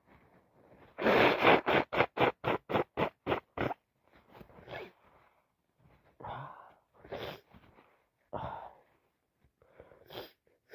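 Nasal and breath sounds of a woman with a heavy head cold: one loud burst about a second in, then a rapid run of short bursts, about four a second, fading over some two seconds, followed by scattered quieter sniffs and breaths.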